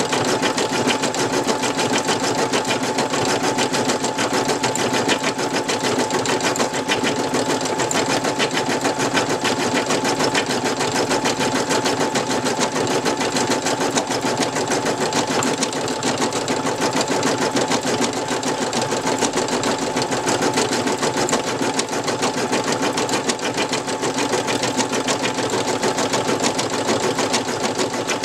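Brother NV2600 computerized embroidery machine stitching a design: rapid, even needle strokes over a steady motor tone, running without pause.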